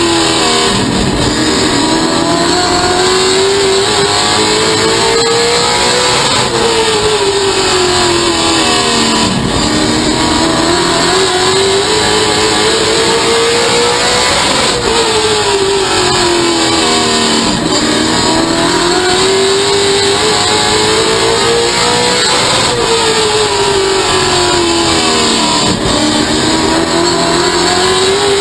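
Race car engine heard from inside the cockpit at racing speed on an oval. The revs climb along each straight and drop off into each turn, in a cycle repeating about every eight seconds.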